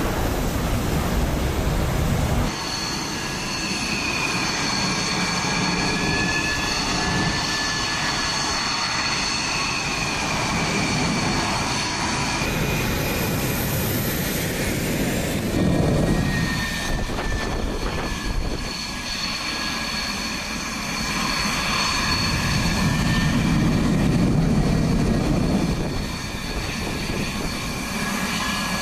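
Fighter jet engines at taxi power: a high, steady whine with a slowly wavering tone beneath it, over a rushing roar. The sound shifts abruptly a few times as different jets are heard.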